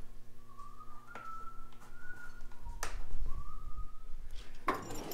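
A person whistling softly: two drawn-out whistled notes, the first rising slightly, with a sharp clack between them and a clatter of metal tools near the end.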